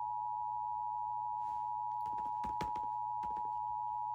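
Emergency Alert System attention signal on FM radio: one steady tone near 1 kHz, held without a break. A few soft clicks and knocks sound over it about two seconds in.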